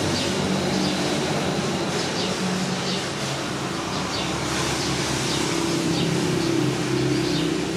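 Steady low mechanical hum, with short high-pitched chirps about once a second.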